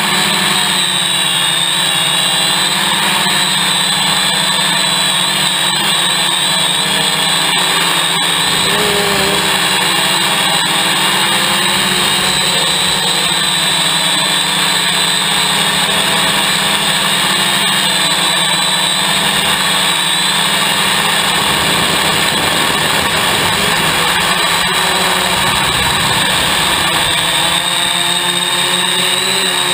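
Hexacopter's six electric motors and propellers buzzing loudly in flight, heard up close from a camera mounted on the craft. The sound is steady, and the pitch of the whine drifts up and down as the motors adjust their speed.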